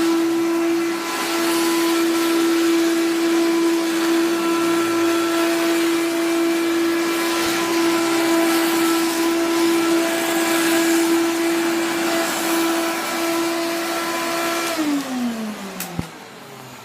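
Vacuum cleaner with a beater-bar agitator running steadily with a high motor hum and airflow hiss, then switched off about three-quarters of the way in, its pitch sliding down as the motor spins down. A sharp click follows.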